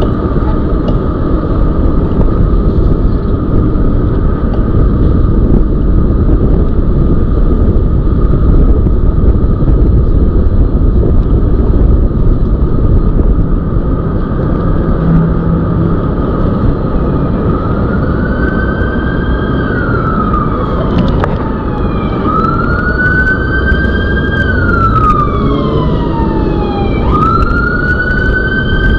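Heavy wind and road noise on the microphone of a moving e-bike, with an emergency-vehicle siren wailing from a bit over halfway in: three slow rises and falls in pitch.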